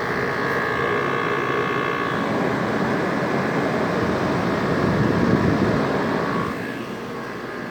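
Window air conditioner with a rotary compressor running: a steady rush of fan air and compressor hum, with faint high whine tones in the first couple of seconds. It grows louder around five seconds in, then drops off near the end.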